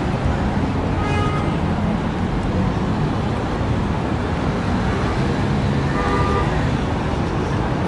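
Steady noise of busy city road traffic, cars and buses passing. Two brief pitched sounds rise above it, about a second in and again around six seconds.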